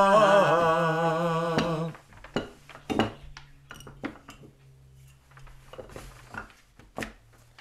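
A sung note with vibrato, the end of the chanted Torah blessing, is held and stops about two seconds in. Then come scattered knocks and clicks as the Torah scroll's wooden rollers are handled and the scroll is unrolled on the table, over a faint low hum.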